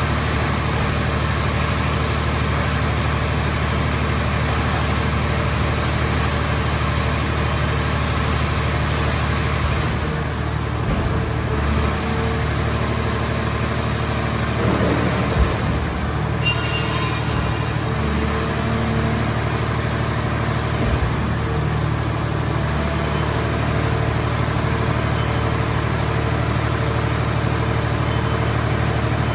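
Engine and hydraulic power unit of a mobile car-shell scrap baler running steadily, a low even hum. A few faint knocks come near the middle.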